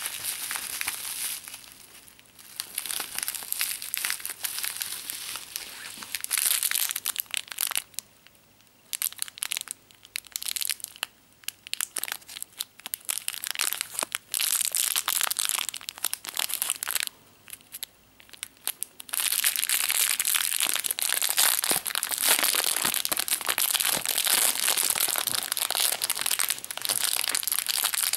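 Bubble wrap and a thin clear plastic bag crinkling as they are unwrapped and handled by hand, in fits with two short pauses, then steadily for the last several seconds.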